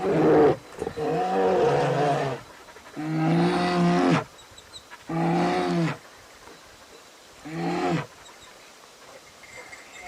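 An animal calling five times: long, pitched, drawn-out calls of about half a second to a second and a half each, with short pauses between them.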